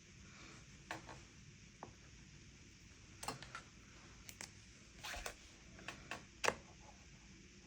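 Scattered light clicks and taps of watercolour painting supplies being handled on a desk, about eight in all, the sharpest one near the end.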